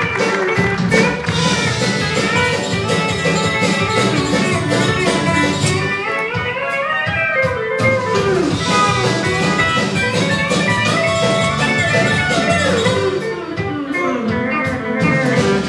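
Live country band playing, with a pedal steel guitar's gliding notes over guitars, banjo, bass and drums.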